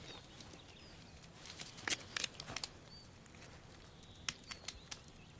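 Quiet outdoor ambience with faint, scattered short clicks. The clicks come in two small clusters, about two seconds in and again about four and a half seconds in.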